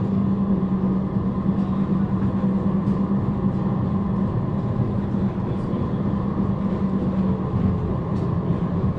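Suburban electric train running, heard from inside the carriage: a continuous rumble with a steady low hum.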